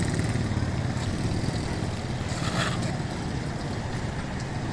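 Low, steady hum of a motor vehicle engine running, easing slightly after the first couple of seconds, with a brief scuff about two and a half seconds in.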